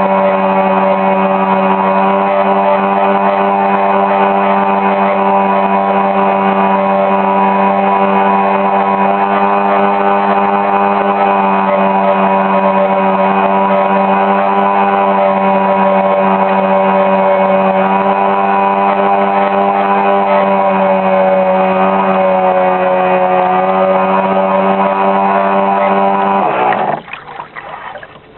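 Riva launch's motor running steadily at speed with an even whine. About 27 s in, its pitch drops sharply as it is throttled back and winds down.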